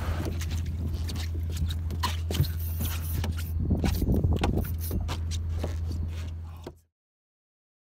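Spinning reel cranked against a hooked shark, with irregular clicking and ticking over a steady low hum. It fades out to silence a little before the end.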